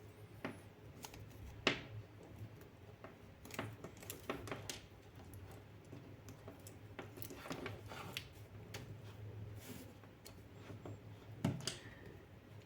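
Irregular light clicks, taps and rustles of hands handling packaging and small plastic electronics, with a sharper knock about two seconds in and another near the end.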